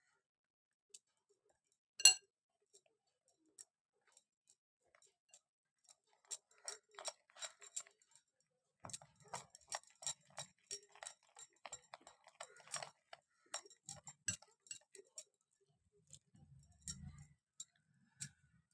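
Steel spoon clinking against a glass bowl while stirring flour and water into batter: one sharp clink about two seconds in, then a long run of quick taps. A few soft thuds near the end.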